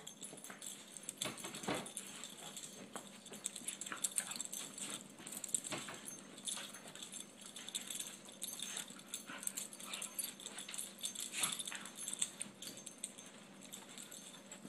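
Small dogs play-wrestling, with soft dog vocalisations and scuffling in short, irregular bursts throughout.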